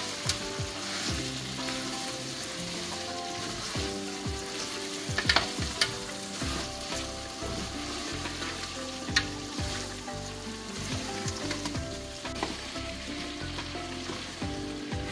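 Chicken pieces and tomato-onion sauce sizzling in an aluminium pot as they are stirred, the spatula scraping and knocking against the pot a few times, over soft background music.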